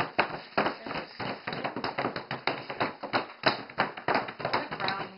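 Several people's hands tapping and patting dark chocolate pieces and molds on a wooden table: a quick, uneven patter of many overlapping taps, several a second.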